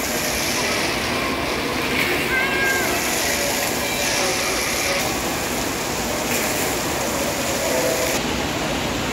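Water park din: a steady rush of splashing, churning water with a crowd's voices echoing under a roof, and a short high-pitched cry about two and a half seconds in.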